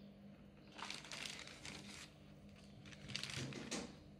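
Clear plastic wrapping crinkling in two spells as a plastic armrest is handled and set down on it.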